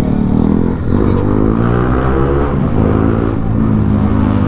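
Motorcycle engine accelerating under way. Its pitch climbs and drops back twice as it shifts up through the gears.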